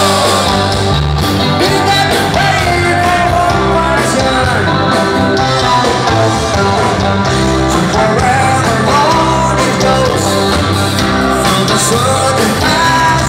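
Loud music with a singer, played steadily without a break.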